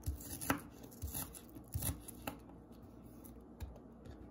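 Chef's knife slicing onion on a plastic cutting board: five or six crisp knocks of the blade on the board in the first two and a half seconds, then only faint handling.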